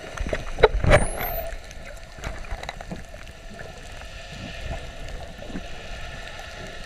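Underwater sound heard through a GoPro housing, close to a Hawaiian spinner dolphin. About a second in there is a short high whistle that sweeps upward, typical of a dolphin whistle, together with a cluster of knocks and a low rumble. Scattered faint clicks run through the rest.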